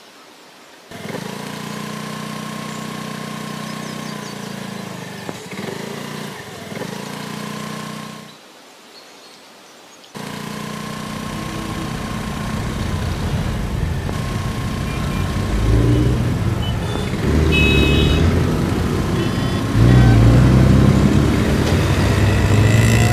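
Motor scooter engine running steadily, cut off after several seconds, then a scooter riding along the road and growing steadily louder as it comes closer.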